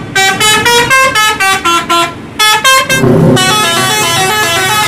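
Tour bus multi-tone musical horn (a "telolet" horn) playing a quick tune of short stepped notes, then a stretch of longer held notes over engine and road rumble from about three seconds in.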